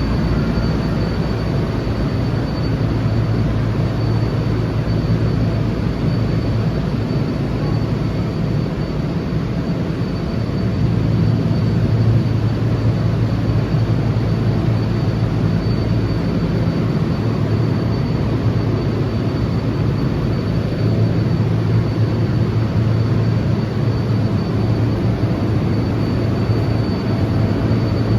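Steady loud drone of a walk-in dairy cooler's refrigeration fans and machinery, with a low hum that swells and fades and a thin, constant high whine.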